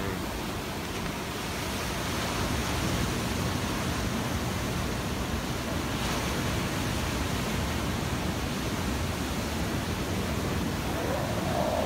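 Ocean surf breaking and washing over the rocks, a steady rushing noise that grows a little louder about two seconds in.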